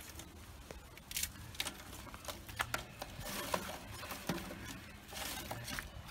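Lumps of charcoal being shifted by hand in the metal firebox of a drum grill: scattered light clinks and scrapes, with short rustling stretches about halfway through and near the end.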